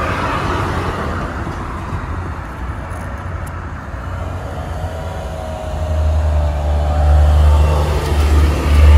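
Road traffic passing close by: a steady low rumble of cars, growing louder about two-thirds of the way in as a vehicle comes past.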